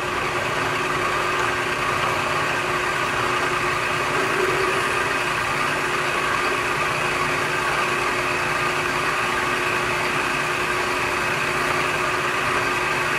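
Bridgeport 2J vertical mill's spindle running steadily while a 13/64-inch drill bit cuts a through-hole in a steel bar, a steady machine hum and whine over the cutting noise. It stops abruptly at the end.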